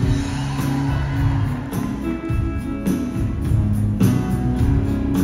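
Acoustic guitar strummed in the instrumental opening of a gospel song, with held chords that change roughly every second.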